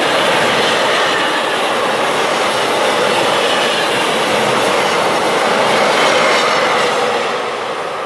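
Freight train of double-deck car-carrier wagons rolling past at speed: a loud, steady running noise of wheels on the rails that eases off near the end as the last wagons go by.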